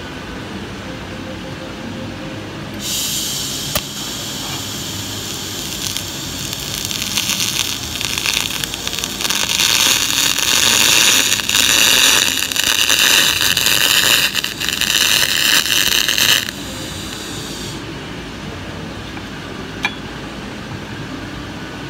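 TIG welding arc on 1.5 mm brass at 100 amps under shielding gas: a hissing, crackling sizzle that starts about three seconds in, grows louder, and cuts off sharply about sixteen seconds in. A fainter hiss follows for about a second after the cutoff. A steady low workshop rumble runs underneath.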